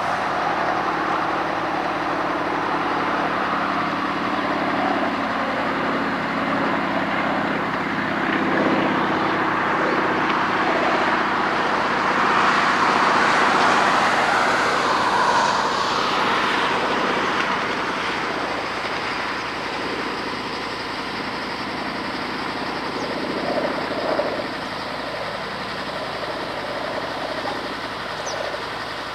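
LET Z-37 Čmelák agricultural aircraft's nine-cylinder radial engine running as it flies past. It grows louder toward the middle and slowly fades in the second half.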